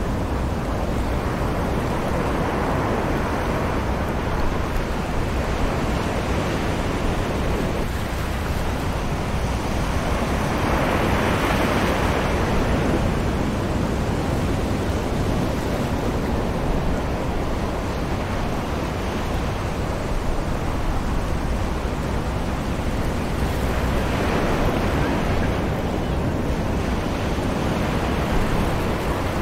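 Distant ocean surf washing onto a sandy beach under a light breeze. It makes a steady rushing noise that swells three times as waves break and run up the sand, most strongly about eleven seconds in.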